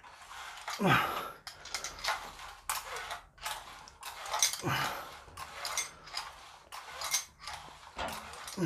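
Dumbbells and the metal snap hooks of their seatbelt-strap supports clicking and rattling as the dumbbells are pressed up and down. A short falling sound comes about every four seconds, three times, in step with the reps.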